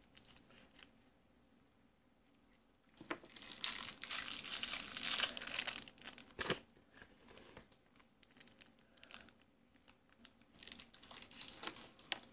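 Candy packaging crinkling as it is handled, with a long stretch of crinkling starting about three seconds in and shorter crinkles after it.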